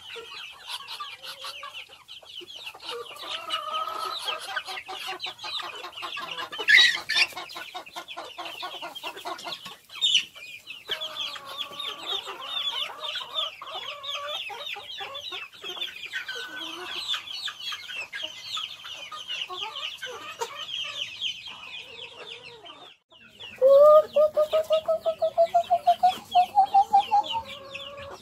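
A flock of chickens clucking while feeding, with a constant stream of quick high calls. Near the end a louder run of rapid pulsed calls climbs steadily in pitch.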